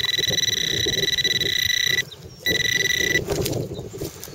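A metal detector gives a steady high tone while held over a target in the hole. The tone cuts out about two seconds in, comes back briefly and stops a little after three seconds. Under it, gloved hands scrape and crumble through the dry clods of soil.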